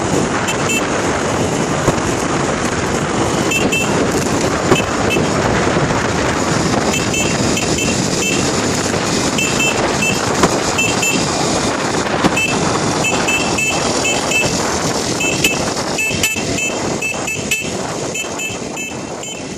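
Steady engine and wind noise from riding a small moped, with a small horn beeping in short pairs many times.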